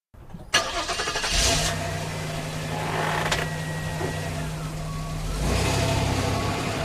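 A vehicle engine comes on suddenly about half a second in and runs with a steady low hum, shifting in tone at about five and a half seconds.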